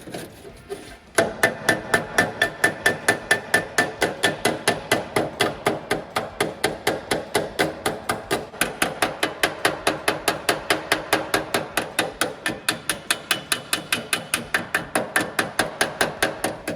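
Hammer striking metal in a rapid, even run of blows, about five a second, starting about a second in. Each blow has a ringing metallic tone.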